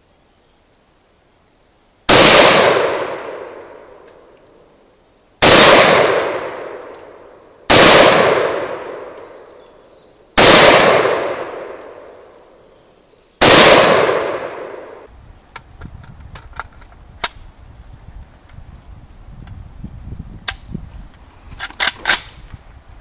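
Radom Sport (civilian Beryl) semi-automatic rifle fired five single shots, two to three seconds apart, each ringing out for a couple of seconds. Then come a few light clicks and clinks.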